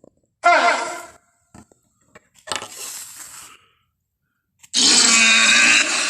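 Dinosaur creature sound effects for a Pachyrhinosaurus: a short, loud call falling in pitch about half a second in, a quieter raspy call in the middle, then a loud, harsh, drawn-out bellow starting near the end.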